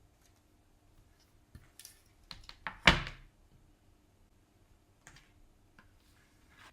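Handling noises in a small room: a few light clicks and knocks, then one louder thunk about three seconds in, like something solid being set down or a door bumping.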